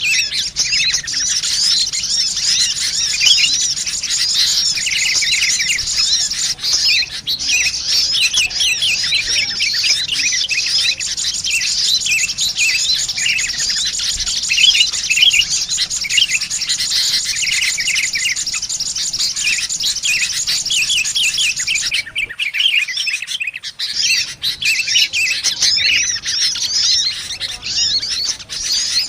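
Busy, unbroken chatter of sunbirds mixed with noisy sooty-headed bulbuls, a bird-trapping lure recording. The rapid high chirps overlap throughout and drop out briefly about 22 seconds in.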